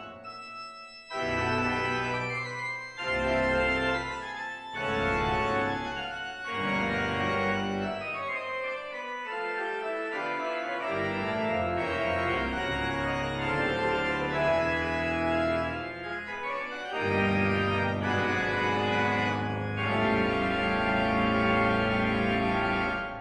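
Church organ playing a classical piece on manuals and pedals: sustained chords over low pedal notes, with a brief break about a second in. The playing stops near the end and the sound dies away.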